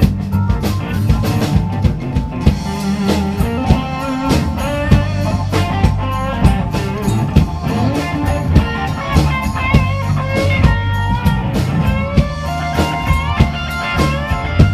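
Instrumental break of a rock-reggae song: guitar lines over bass and a steady drum beat, no singing.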